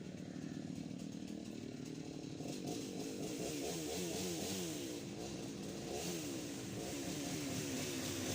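Chainsaw running, its engine revving up and down repeatedly from about three seconds in, the pitch rising and falling.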